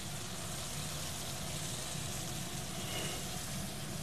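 Chicken simmering in salsa and broth sauce in a skillet, sizzling with a steady hiss.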